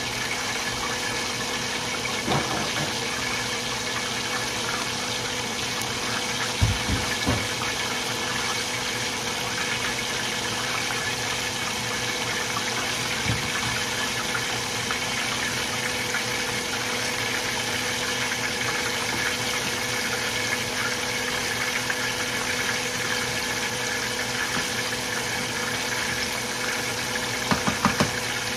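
Hot cooking oil sizzling steadily in a frying pan, with a faint steady hum underneath. A few light knocks near the end.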